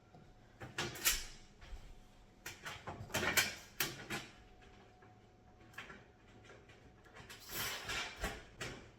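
Metal raised garden bed parts being handled during assembly: short clicks, knocks and rattles of the metal panels and screws, in three clusters, about a second in, from about two and a half to four seconds, and near the end.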